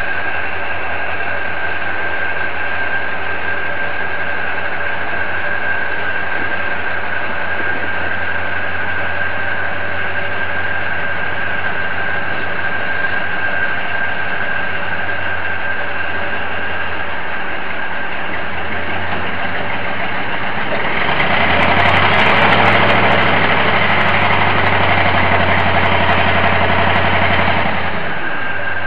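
Crane engine running steadily at idle with a constant whine, revving up louder for about seven seconds from roughly twenty seconds in while it moves the suspended load, then dropping back to idle near the end.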